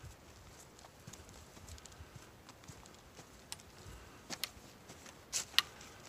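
Footsteps crunching on a forest trail covered in dry leaves and pine needles, with a few sharper crackles about four and a half and five and a half seconds in.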